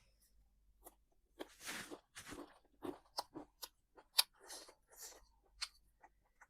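Close-up crunching and chewing of crispy fried chicken hot wings, in irregular crunchy bites, the sharpest one about four seconds in.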